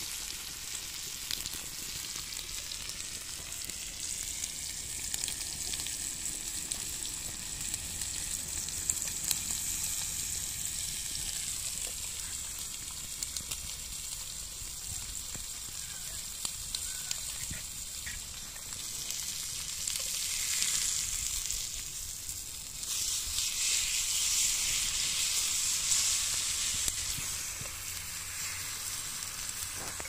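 Beef steak with butter and garlic sizzling in a cast-iron grill pan over a wood fire: a steady frying hiss with a few faint pops, swelling louder twice in the second half.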